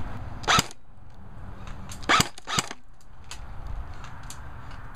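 Airsoft gun shots fired close by: three loud, sharp pops, the last two close together, with fainter clicks and pops in between.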